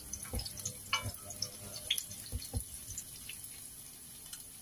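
Sliced onions frying in oil in a stainless steel pan, with scattered crackles and pops, while a wooden spatula stirs them and knocks against the pan a few times.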